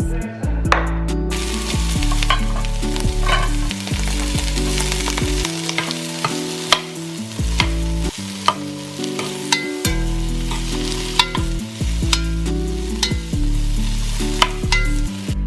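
Food sizzling as it fries in a pan, with a steady hiss and frequent sharp clicks of a utensil stirring against the pan.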